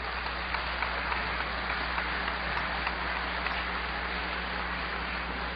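Audience applauding: a dense patter of many hands clapping that swells and then slowly fades.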